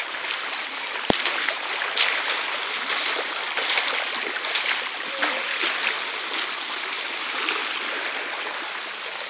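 Muddy rainwater runoff rushing and splashing down a dirt road in a steady wash of noise, with a single sharp click about a second in.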